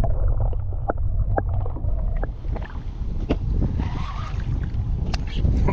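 Wind buffeting the microphone in a steady low rumble, with scattered sharp clicks and small water splashes around a kayak.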